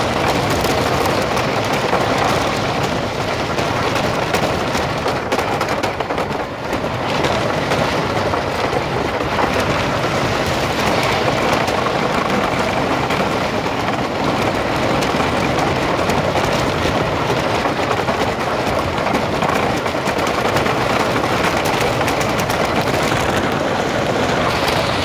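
Wooden roller coaster train running at speed over its wooden track: a steady, loud rumble and rattling clatter of the wheels on the rails, with a brief dip about six seconds in.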